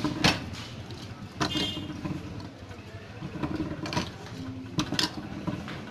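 Hand-lever cast-iron citrus juice press squeezing sweet lime halves: a handful of sharp metal clanks and knocks as the fruit is set in the press cup and the lever is worked. The loudest comes near the start, and one about a second and a half in rings briefly.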